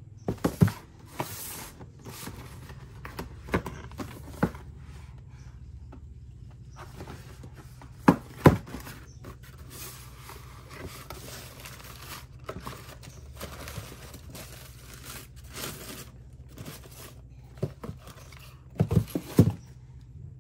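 Cardboard shoebox being opened and handled, with white tissue paper rustling and crinkling as it is folded back and the sneaker is lifted out. Several sharp knocks from the cardboard come through, loudest about eight seconds in and again near the end.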